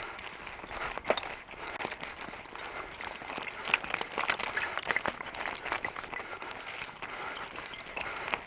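Loose gravel and stones on a rocky trail crunching and clicking underfoot or under a wheel, a rough steady noise with many sharp little clicks scattered through it.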